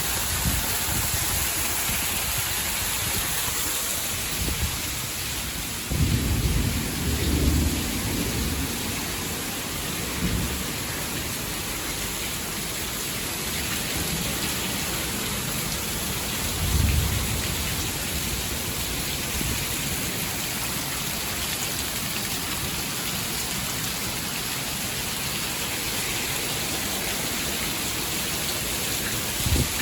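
Heavy rain pouring steadily, with short low rumbles of muffled thunder about six seconds in and again about seventeen seconds in.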